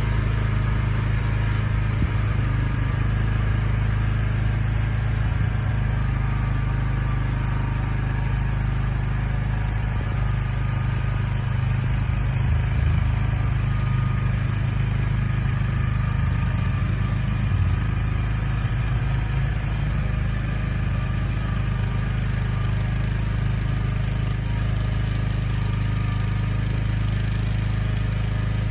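Skid steer loader's engine running steadily, with an even, low engine note and no change in speed.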